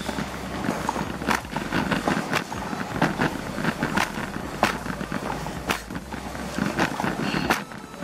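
Nylon puffer jacket rustling against a handheld phone's microphone, with sharp knocks roughly once a second as the phone is carried along.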